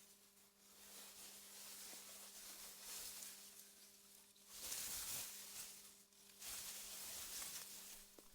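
Soft wind through meadow grass, a faint hiss that swells and eases in gusts, with a faint steady hum underneath.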